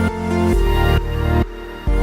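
Electronic background music with heavy bass notes pulsing in a steady beat.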